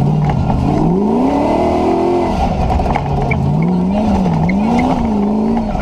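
4.6-litre V8 Land Rover competition car driven hard off-road. The engine climbs steeply in revs about a second in and drops back near three seconds, then rises and falls several times in quick succession.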